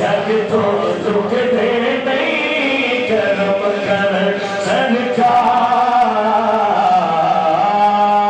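A man reciting a naat, a devotional Urdu poem, in a melodic chant into a microphone. His voice glides between notes and holds a long note over the last few seconds.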